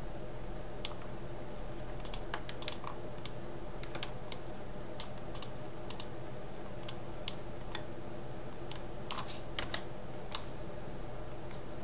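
Computer mouse buttons and keyboard keys clicking irregularly, single clicks and quick pairs, over a steady low hum.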